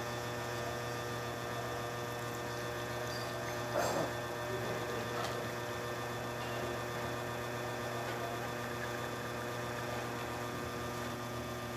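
Alex Duetto espresso machine's pump running with a steady hum while a test shot is pulled through its E61 group. A brief knock about four seconds in.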